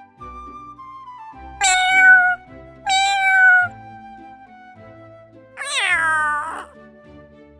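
A cat meowing three times, each call a drawn-out pitched mew that falls in pitch, over soft background music.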